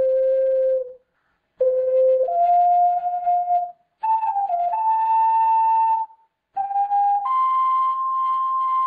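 Teacup-shaped ocarina playing a slow tune of held, pure notes. The tune comes in short phrases with brief pauses for breath between them and climbs step by step to its highest note, which is held near the end.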